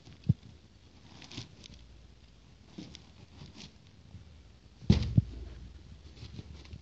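A box and its packaging being handled during an unboxing: short rustles and a few knocks, the loudest a quick double knock about five seconds in.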